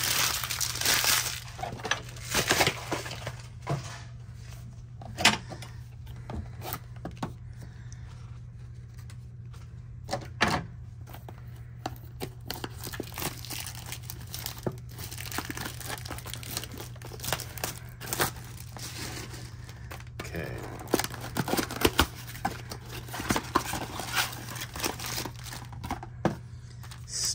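Plastic and foil wrapping crinkling and tearing as a Topps Chrome blaster box of trading cards is opened and its packs are handled. Irregular crackles and sharp rips come throughout, busiest at the start and again near the end.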